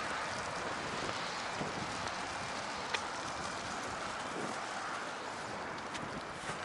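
Steady outdoor wind noise with no speech. A single sharp click comes about three seconds in.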